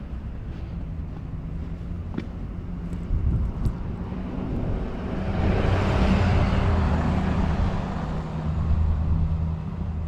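A vehicle drives past close by on a snow-covered street. Its engine and tyre noise swells to a peak about six seconds in, then fades, over a steady low rumble.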